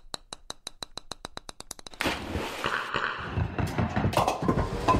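Radio jingle sound effects: a rapid ticking that speeds up for about two seconds, then a sudden loud burst of rushing noise that carries on, with a sharp hit near the end.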